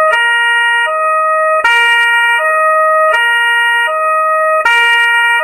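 Two-tone emergency siren, a lower and a higher note alternating about every three-quarters of a second in a steady hi-lo cycle, loud.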